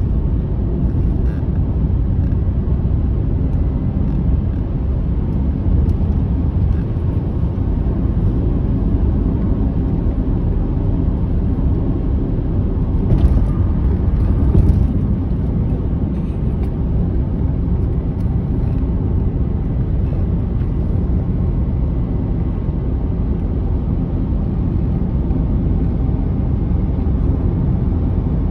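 Steady low rumble of a car's engine and tyres on the road, heard from inside the cabin while driving at highway speed, with a couple of brief louder bumps about halfway through.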